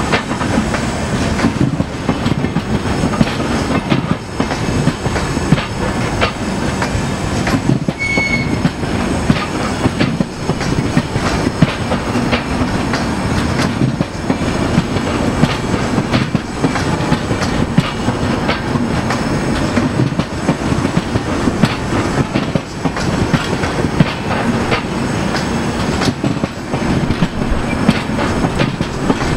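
Indian Railways passenger train of LHB coaches rolling past: a steady rumble of wheels on rail with a rapid clickety-clack of wheels over the rail joints. A brief high squeal about eight seconds in.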